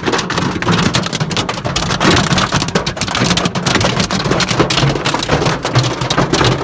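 Hail and heavy rain pelting a car's roof and windows, heard from inside the cabin: a loud, dense, unbroken clatter of impacts.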